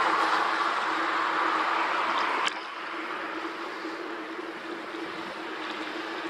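Wind rushing over the microphone of a bicycle-mounted camera while riding, with a steady hum underneath. About two and a half seconds in there is a click, and the rushing suddenly drops to a lower level.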